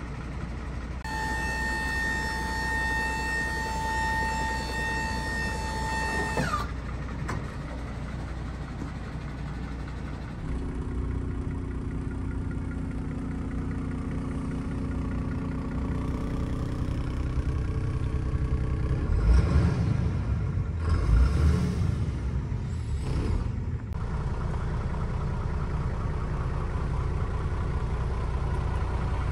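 MAN TGM 18.250 six-cylinder diesel idling steadily throughout. For about five seconds near the start an electric tail-lift pump whines steadily, then winds down in pitch as it stops. After about ten seconds the idle is heard from inside the cab, with a few knocks a little before the end.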